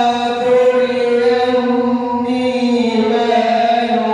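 A man reciting the Quran in the melodic, chanted tajwid style, drawing out long held notes that shift to a new pitch a couple of times.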